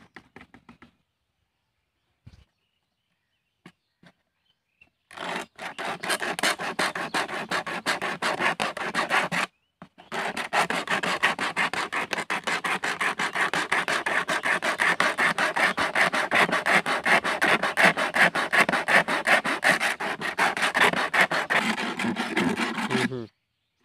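A blade sawing through a plastic bottle in fast, even back-and-forth rasping strokes that start about five seconds in, with one short break.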